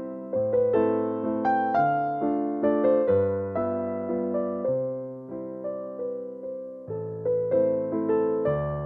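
Background music on a keyboard: a melody of struck notes that each ring and die away, over a bass line that changes about once a second.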